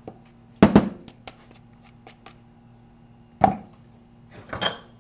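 Knocks and clunks of a plastic lawn mower wheel and parts being handled on a workbench: a double knock just under a second in, another near three and a half seconds, and a short clatter near the end.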